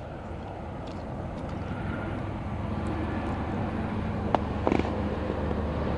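Steady low rumble of distant road traffic, with a sharp click a little over four seconds in.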